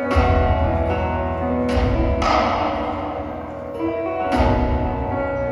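Music with deep bass notes and sustained pitched tones, played through a Yamaha 5.1 surround system: DSP-A595a AV amplifier, YST-SW P201 active subwoofer and NX-230P satellite speakers.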